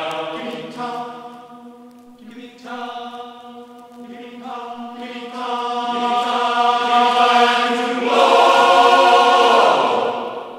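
A choir singing long held chords with no clear words. It swells louder from about halfway through, is loudest near the end, and then fades away.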